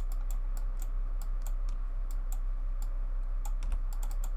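Computer mouse and keyboard clicks, short and irregular, several a second, as faces are selected one by one, over a steady low hum.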